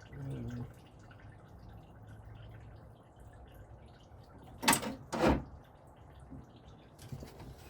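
Two sharp knocks about half a second apart, with a fainter knock near the end and a brief low murmur at the start.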